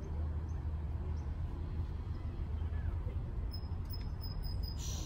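Steady low outdoor background rumble, with a few faint high bird chirps and a brief hiss near the end.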